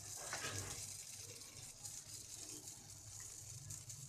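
Faint steady hiss over a low hum.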